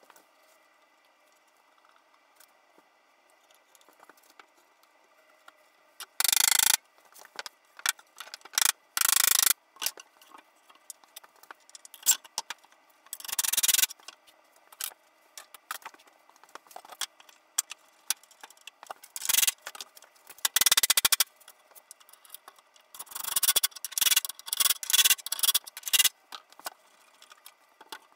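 A hand tool scraping on wood in short strokes, starting about six seconds in: a dozen or so separate strokes, each under a second, with pauses between them.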